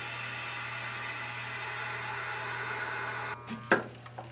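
Chamber vacuum sealer running: a steady pump hum with a broad rush of air that cuts off suddenly a little over three seconds in, followed by a couple of sharp clacks as the lid comes up off the sealed bag.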